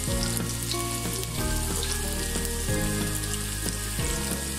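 Sliced onions frying in hot ghee in a pot, a steady sizzle with small crackles.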